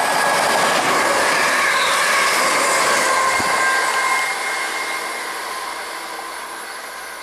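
ScotRail Class 380 electric multiple unit running through the station at speed without stopping: a loud rush of wheels on rail with a steady electric whine, dying away gradually after about four seconds.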